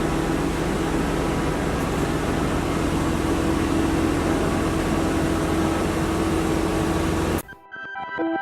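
Steady mechanical hum of running shop machinery, a low drone with a few steady tones, which cuts off abruptly about seven seconds in; faint music starts near the end.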